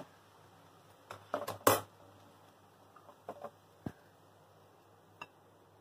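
Steel spatula scraping and clinking against a kadai while crumbly fish puttu is scooped out, a handful of scattered knocks, the loudest a little under two seconds in.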